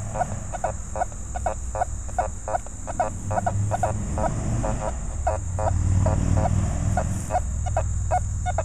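Nokta Fors Core metal detector beeping in short, rapid pitched tones, about four a second, as its coil sweeps over a dime lying under a rusty nail: the detector's target response to the nail-and-dime pair. A low rumble runs beneath, strongest about six seconds in.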